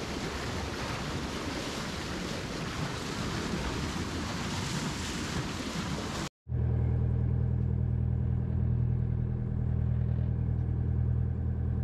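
The rushing splash of a motor sailer's bow wave as the hull cuts through the water. After a sudden cut about six seconds in, the boat's inboard engine runs with a steady, even drone.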